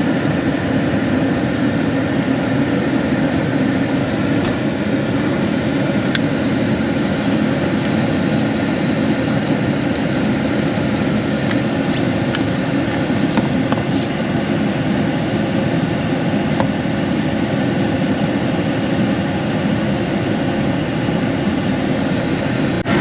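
Steady, unchanging mechanical running noise, a loud rushing hum, with a few faint clicks.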